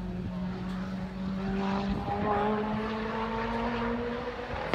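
Car engine accelerating on the track, growing louder from about a second in with its note rising steadily for about three seconds, over a steady low hum.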